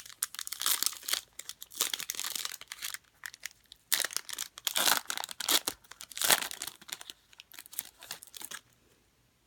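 Foil trading-card pack being torn open and crinkled by hand, in irregular bursts of crackling, ending shortly before the end.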